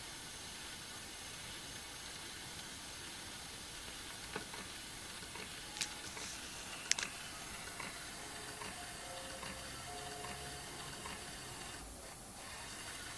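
A steady hiss with a few sharp clicks in the middle, then faint, sparse held musical notes begin about two-thirds of the way through.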